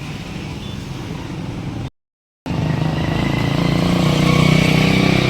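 Motorcycle engine running steadily, cut off by a brief total dropout about two seconds in, then running louder afterwards.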